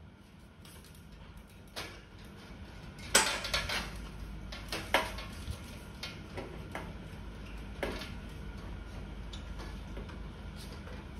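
Metal clicks and clacks of hand tools and parts against the sheet-metal body of a gas stove being worked on, scattered and irregular, the loudest a sharp clack about three seconds in.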